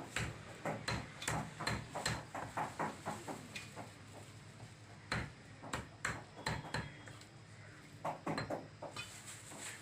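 Cleaver chopping chicken on a chopping block: a run of sharp chops, about two or three a second, with short pauses in between.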